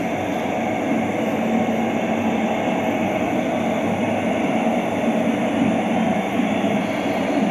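Steady rumbling noise of a vehicle in motion, even and unbroken.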